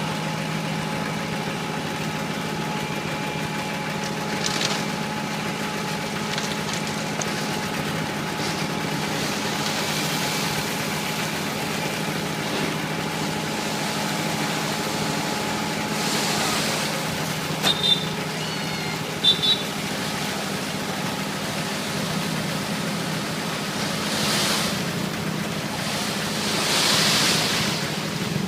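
Engines of an RD 800 mixer and a site truck running steadily at a constant pitch, with a few swells of hiss and two short high chirps about two-thirds of the way through.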